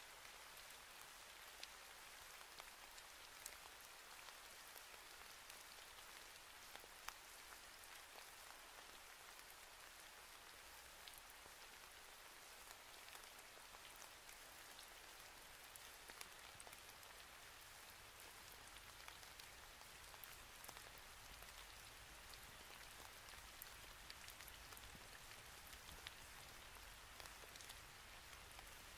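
Near silence: a faint, even hiss sprinkled with many small soft crackles.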